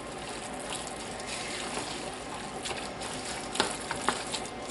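Wooden spoon stirring a thick, wet mixture of ground beef, beans and sour cream in a stainless steel pot, a steady wet squelching hiss, with a couple of sharp clicks of the spoon against the pot a little over three and a half seconds in.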